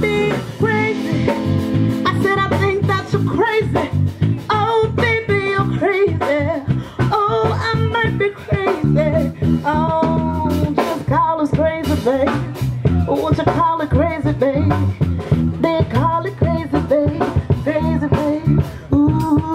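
Live band playing: a woman sings with a wavering vibrato over electric bass guitar and a drum kit keeping a steady beat.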